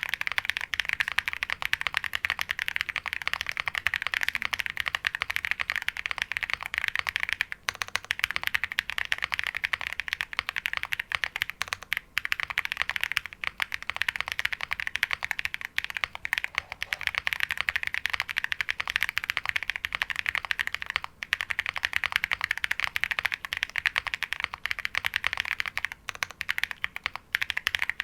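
Qwertykey QK65 custom mechanical keyboard being typed on quickly and continuously. It has lubed Holy Panda tactile switches on an aluminium plate under PBT keycaps, giving a thocky keystroke sound. The typing stops briefly a few times.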